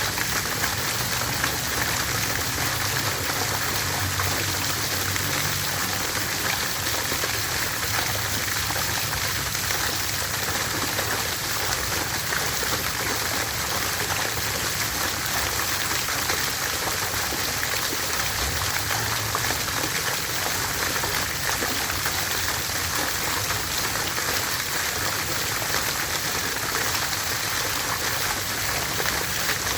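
Water fountain splashing steadily: an even, unbroken rush of falling water.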